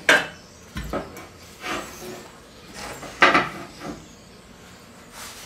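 Metal knocks and scrapes as a steel hydraulic line and heavy round steel blocks are set down and shifted on a steel welding table. A few separate clanks, the loudest at the start and about three seconds in, with short scraping in between.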